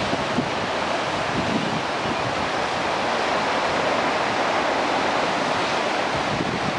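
Storm surf breaking and rushing over a rocky shore in a steady wash, with wind buffeting the microphone.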